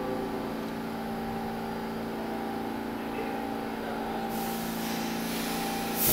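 R46 subway train standing at the platform, its equipment giving a steady electric hum. From about four seconds in, compressed air starts hissing, ending in a short, loud blast of air near the end.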